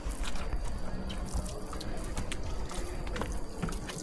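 Water dripping and trickling, with scattered small splashes over a low, steady rumble.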